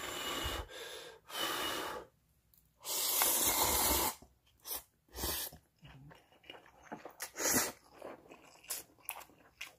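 A person eating hot, spicy ramen in fish-and-crab stew: a few long, airy slurps and breaths, the longest in the first half, then smaller mouth sounds and chewing.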